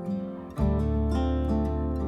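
Background music: acoustic guitar plucking notes, with a deep bass note coming in about half a second in.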